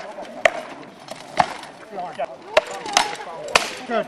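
Rattan weapons in SCA armoured combat striking shields and armour: about six sharp, hard clacks at irregular intervals.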